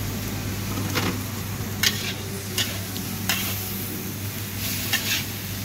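Metal spatula scraping and clanking against a large wok as fried noodles are stirred and tossed, with several sharp strikes over a steady sizzle and a low hum.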